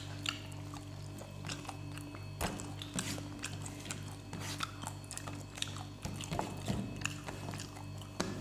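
Close-miked eating: chewing and lip smacks from people eating rice and fish curry by hand, a string of short sharp clicks over a steady low hum.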